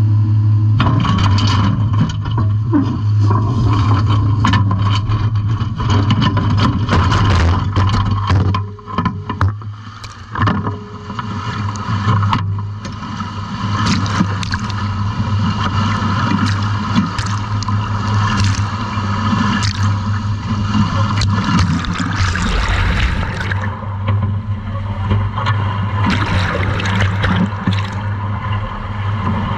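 Steady low drone of a fishing vessel's engine, with the steel scallop dredge scraping and knocking and water splashing and gurgling around it.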